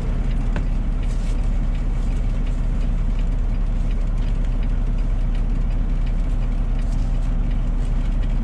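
Peterbilt semi tractor's diesel engine idling steadily, heard from inside the cab as a low, even drone.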